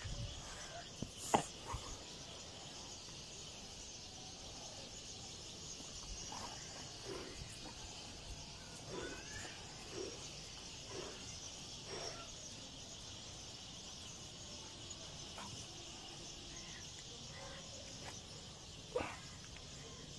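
Steady high-pitched chorus of insects, with scattered faint short sounds and two sharp knocks, one about a second in and one near the end.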